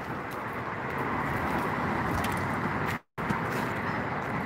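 Steady rumble of road traffic and open-air wind noise. The audio cuts out completely for a moment about three seconds in.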